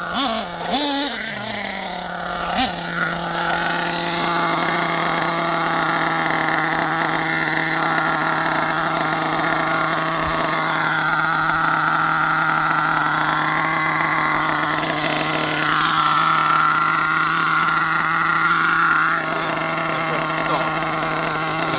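The two-stroke 4.6 big block nitro glow engine of an HPI Savage X RC monster truck idling steadily. Its pitch falls and settles in the first couple of seconds.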